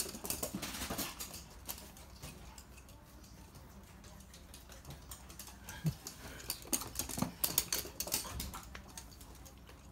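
Toy poodles' claws clicking and pattering on a hard floor as they run: a flurry at the start, a quieter stretch, then another flurry from about six to eight seconds in.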